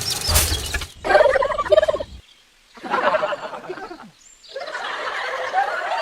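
Rapid, warbling animal calls in three bursts separated by short pauses, the last burst dense and continuing.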